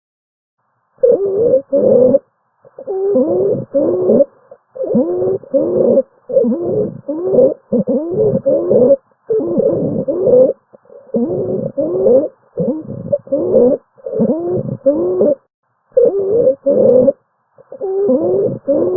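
Recorded lung sounds with musical, wavering wheezes on each breath. The breaths come quickly as bursts of about a second, often in pairs, separated by brief gaps.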